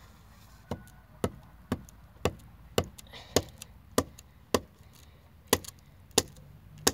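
Wooden pole being struck: a regular series of sharp wooden knocks, about two a second, with one beat missing about five seconds in.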